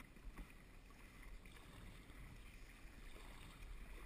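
Faint water sloshing and splashing against a sit-on-top kayak's hull as it rides the waves, over a low wind rumble on the microphone.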